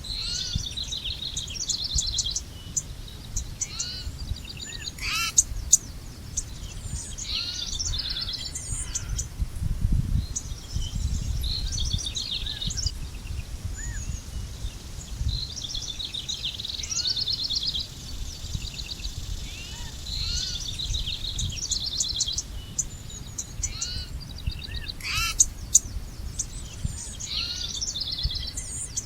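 Several wild birds singing and calling, with fast high trills and short chirps overlapping throughout, over a steady low rumble.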